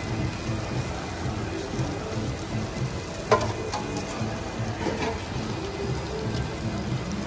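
Marinated chicken sizzling on a flat steel griddle, with metal tongs scraping the hot plate. A single sharp metal clank a little before halfway through is the loudest moment.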